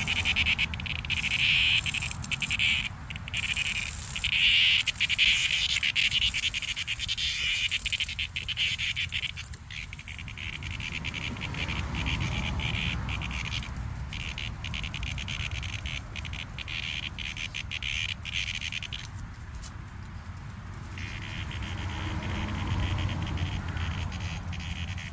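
Cicadas buzzing in loud stretches over the first several seconds, then more faintly, over a low rumble.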